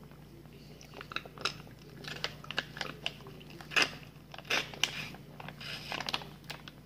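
Foil juice pouch crinkling and crackling in the hand as it is squeezed and sucked on through its straw: a run of irregular sharp crackles starting about a second in, loudest near the middle.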